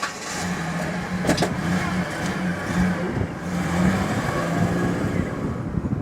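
A motor vehicle's engine running nearby with a steady low hum, with a few knocks and clicks over it.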